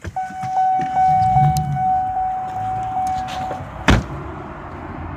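A car's electronic warning chime sounds as one steady tone with a faint regular pulse for about three and a half seconds, then stops. Just after it, about four seconds in, the car door is shut with a single loud thump.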